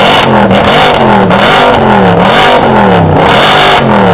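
Mercedes-AMG sedan's exhaust as the engine is revved over and over while parked, its pitch swinging up and down about once a second.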